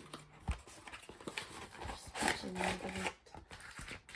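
Crinkling and rustling of a trading-card starter deck's plastic wrap and cardboard box being torn open by hand, in a string of short irregular clicks and crackles, with a brief hummed voice about two and a half seconds in.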